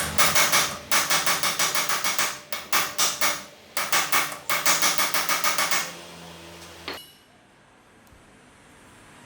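Hammer blows on steel, rapid ringing strikes about five a second in three runs with short breaks between. These are typical of a steering-stem bearing cup being driven with hammer and drift. A single knock follows near the end.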